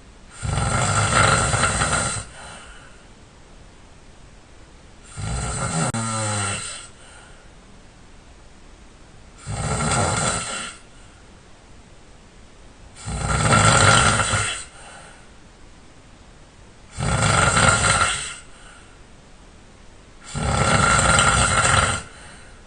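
A man snoring loudly and hard in deep sleep: six snores, each about a second and a half long, coming every three and a half to four seconds, the second of them sliding down in pitch.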